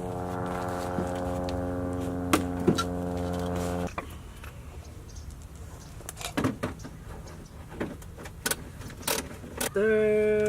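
A handheld power tool's motor running steadily for about four seconds and stopping suddenly while the fender liner fasteners are being removed, followed by light clicks and clatter of handling parts and tools. A second, higher-pitched run of the motor starts near the end.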